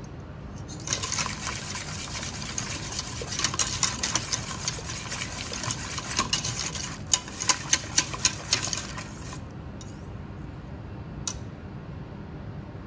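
A wire balloon whisk stirring thick barbecue sauce in a stainless steel pot, its wires scraping and clicking quickly against the metal sides and bottom. The whisking stops about nine seconds in, leaving a faint low hum and a single click.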